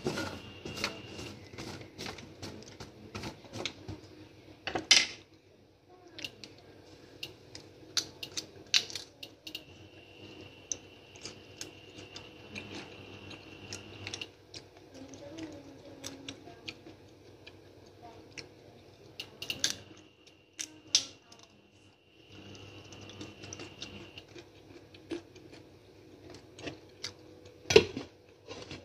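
Boiled peanuts in their shells clicking and rattling against a stainless steel frying pan as a spatula stirs them, with a sharp knock about five seconds in. Near the end a glass lid clanks onto the pan. A faint steady hum runs underneath.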